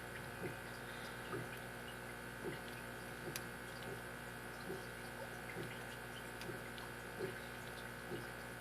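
Soft, faint ticks about once a second from a lock pick probing the pin stack of a brass padlock held under tension, as each pin is tested for binding. A steady low hum runs underneath.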